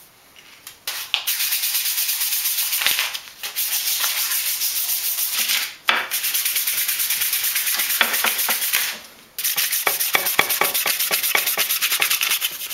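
Sandpaper rasping rapidly against a block of red cumaru hardwood as the glued-up piece is sanded smooth. It comes in several runs, broken by brief pauses about 3, 6 and 9 seconds in.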